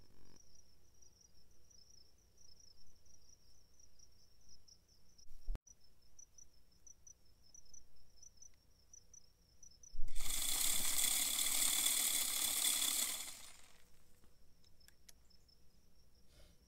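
Automatic deer feeder going off at its set time: a loud rush of noise for about three seconds as the spinner throws feed, starting about ten seconds in. Before and after, insects trill steadily in a high pulsing chirp, with one sharp click about five seconds in.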